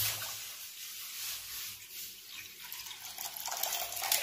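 Water poured from a bottle into a hot aluminium kadai: the hiss of water hitting the hot metal fades over the first second, leaving a quieter splashing pour. There are a few light clicks near the end.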